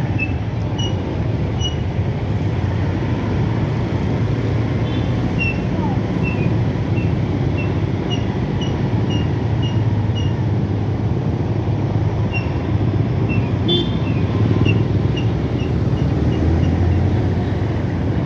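Steady traffic noise from idling and creeping cars and motorcycles, with a low engine rumble underneath. Short, high chirps repeat irregularly throughout, one to two a second at times.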